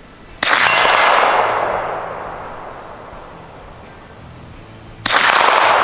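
Two shots from a suppressed Lone Wolf Glock-pattern 9mm pistol, about four and a half seconds apart, each trailing off in a long echo.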